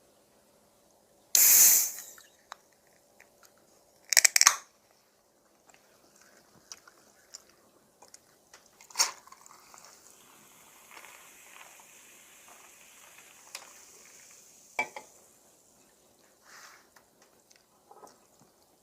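A can of Dr Pepper cracked open with a loud hissing burst, then a second short burst a few seconds later. Faint fizzing of the soda follows, with a couple of light clicks.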